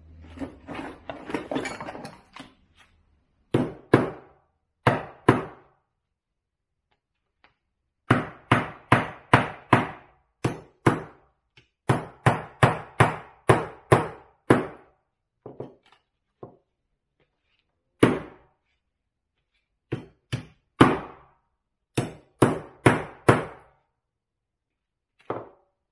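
Sharp knocks and taps from work on a knife handle being glued up, in uneven runs of quick strokes of about two a second with pauses between. A brief scuffing and rustling comes first.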